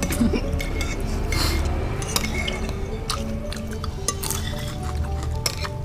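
Background music with a steady low bass, over scattered light clinks and taps of spoons on plates and bowls as people eat.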